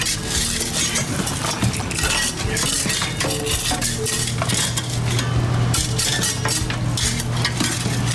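Metal hand tool digging and scraping in dry, sandy soil, giving repeated short gritty scrapes, with a steady low hum underneath that gets stronger about halfway through.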